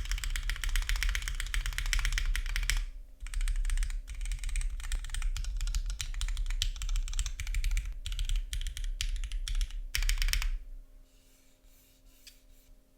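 Fast, continuous typing on a custom 60% mechanical keyboard with lubed Cherry MX Black linear switches on an aluminium plate, a clacky key sound. The typing stops about two seconds before the end.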